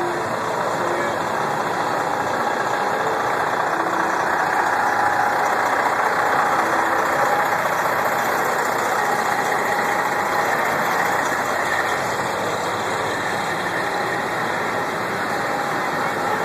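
Parked fire trucks' engines idling, a steady engine noise that holds at an even level throughout.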